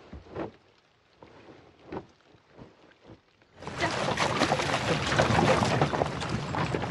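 A few faint knocks, then from about three and a half seconds in, a horse-drawn carriage on the move: hooves splashing through mud and puddles, with the carriage rolling along.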